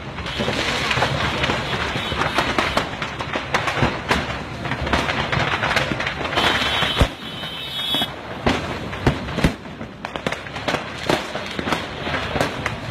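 A load of fireworks burning on a vehicle, going off in a dense, continuous crackle of firecracker pops with louder sharp cracks scattered throughout. A brief high whistling tone sounds about six seconds in.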